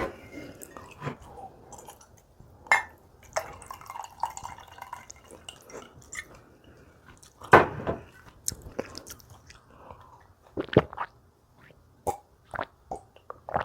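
Close-miked chewing of food, with wet mouth clicks and smacks and a few louder bites about 3, 7.5 and 11 seconds in.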